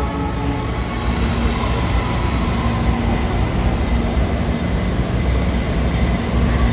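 Train running through a station: a steady low rumble with a faint hum over it.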